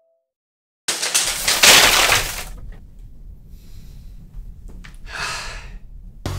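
A sudden loud crash of noise about a second in, like something breaking, fading over a second or so, then a shorter rush of noise near the end as music begins.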